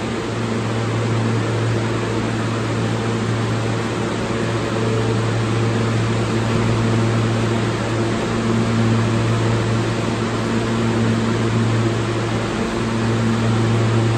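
R160A-1 subway car standing at the platform, its air-conditioning and onboard electrical equipment giving a steady hum: a strong low drone with a few fainter steady tones above it.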